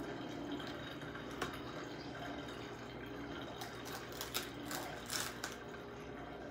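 A few faint clicks and light scraping from small objects being handled, over a steady low background hum. The clicks come once about a second and a half in, then in a short cluster past the middle.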